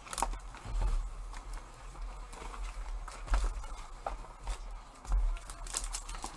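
Hands handling hockey card packs and boxes on a table: soft scattered clicks and three dull low knocks, about one, three and five seconds in.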